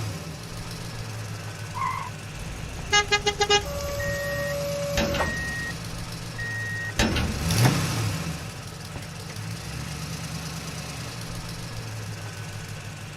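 Toy-vehicle sound effects: a motor vehicle engine running steadily, with five quick horn toots about three seconds in, then a held tone and three short beeps.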